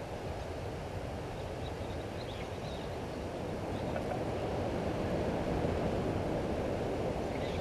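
Outdoor ambience: a steady low rumbling noise that grows slightly louder, with a few faint, brief high bird chirps about two and four seconds in.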